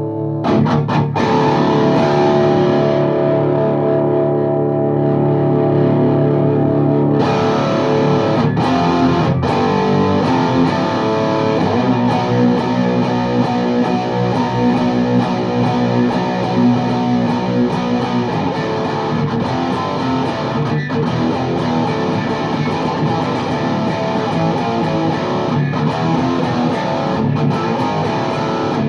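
Les Paul Custom electric guitar through a VHT Deliverance D60 tube amp with two KT88 power tubes, miked with an SM57 on a 4x12 cabinet with Vintage 30 speakers, playing distorted chords. It starts with ringing held chords, then about seven seconds in the tone turns brighter and the playing becomes busier riffing.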